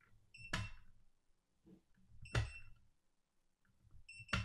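A preset torque screwdriver is cycled three times on a torque analyzer's sensor, about two seconds apart. Each cycle ends in a sharp click as the tool releases at its set torque, with a short beep from the Mountz EZ-TorQ III analyzer as it logs the peak reading. These are calibration check cycles, with the readings now within specification.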